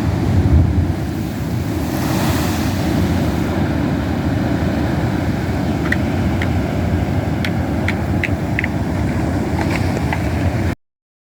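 Ocean surf from king tides breaking against cliffs, a steady loud rumbling wash with wind buffeting the microphone. A few short high chirps sound in the second half, and the sound cuts off abruptly near the end.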